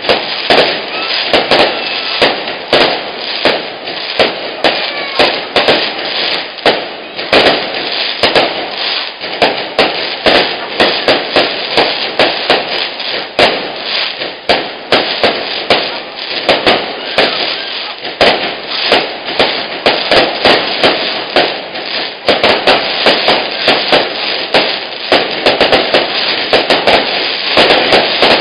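Fireworks display: a rapid, continuous barrage of aerial shell bursts and firecracker bangs with crackling, growing denser and louder near the end. The loudest bangs hit full scale and clip the recording.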